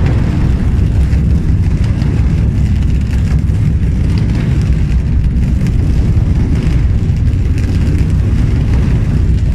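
Steady background music dominated by a heavy, dense bass line.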